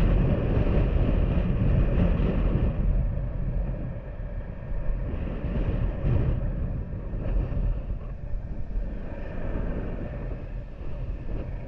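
Honda Super Cub's small single-cylinder engine running on the road, with wind buffeting the microphone. The sound eases off a little about three seconds in.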